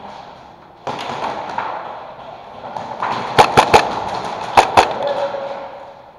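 Airsoft gunshots in a large echoing room: five sharp pops, three in quick succession and then two more about a second later, over a steady hiss of background noise.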